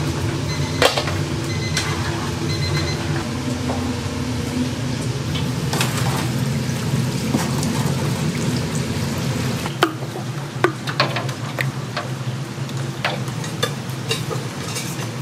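Battered chicken deep-frying in hot oil in a cast-iron cauldron: a steady sizzle over a low hum, with sharp clinks of a wire strainer and metal ladle against the pot. The clinks come more often after about ten seconds, when the low hum drops away.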